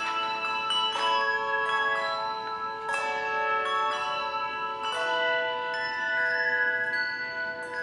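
Handbell choir ringing brass handbells in a piece of music: chords are struck every second or so, the notes ringing on and overlapping one another.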